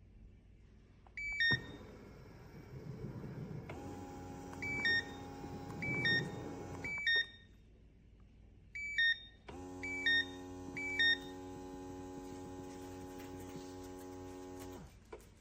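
KNQZE shiatsu foot massager's control panel giving a series of short two-note electronic beeps, each falling in pitch, as settings are pressed. Between the beeps the massager's motor runs with a steady hum, stopping at about 7 seconds, then starting again at about 9.5 seconds and stopping near the end.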